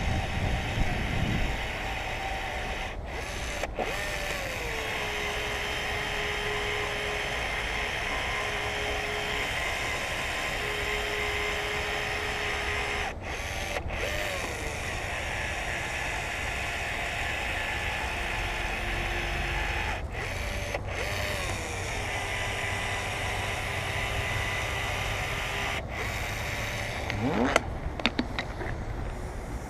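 Small electric motor of a battery-powered caulking gun running in stretches, laying a urethane glue bead for a back glass. Each time it starts, its whine rises briefly and then drops to a steady tone, and the sound breaks off abruptly several times. Near the end come a few clicks and a rising sweep.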